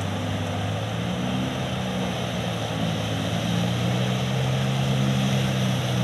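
Floodwater rushing over a submerged road causeway, with the steady drone of motorcycle engines riding through the water, growing slightly louder near the end as they come closer.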